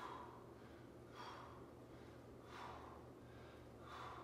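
A man's sharp breaths out, four of them about one every 1.4 seconds, paced with each resistance-band row; a low steady hum underneath.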